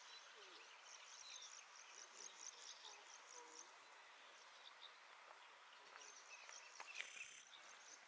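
Faint natural outdoor ambience, close to near silence: a quick run of short high chirps, about four or five a second, through the first three seconds or so, over a soft hiss, with a few faint clicks about seven seconds in.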